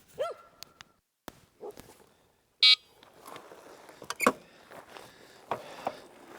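A short, loud electronic buzzer beep about two and a half seconds in, typical of an ebike's electric horn. A faint short whine comes just before it, and a few scattered clicks and ticks follow.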